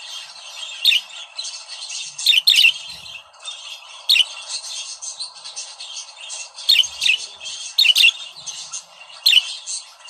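Budgerigars warbling in a continuous chatter, broken by several loud, sharp chirping calls every second or two.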